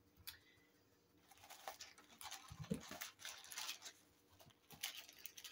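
Faint crinkling and rustling of a paper hamburger wrapper as the burger is unwrapped and lifted out, with a soft knock partway through.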